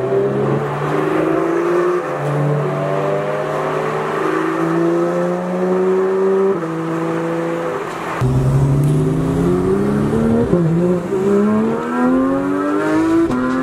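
Porsche 991.2 GT3's flat-six through its IPE exhaust, heard from inside the cabin while driving: the engine note holds steady, then climbs and drops back several times as it is run up through the gears.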